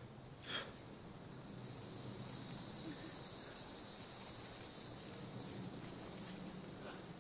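Insects in tropical forest droning in a steady, high-pitched chorus that swells about a second and a half in and then holds. A single short knock comes about half a second in.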